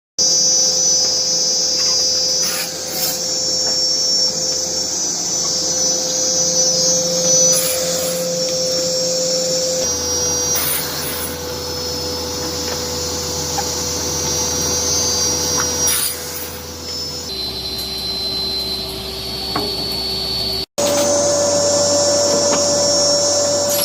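Automatic cross-cut circular saw running with a steady high whine, cutting wooden pallet boards with short sharp cutting noises every few seconds. Its tone shifts abruptly a few times.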